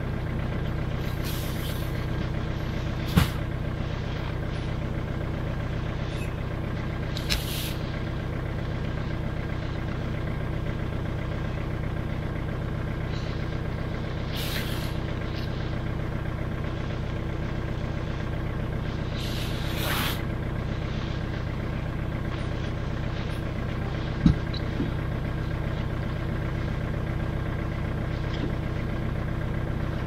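All-terrain vehicle engine idling steadily. Over it come a few sharp knocks, the loudest about three seconds in and again past twenty seconds, and several short hisses.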